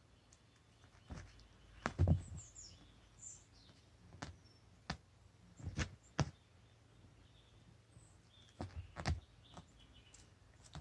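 A kitten playing with a wand toy on carpet: scattered soft thumps and taps as it pounces and bats, the loudest thump about two seconds in. A few faint high chirps come a little after that thump.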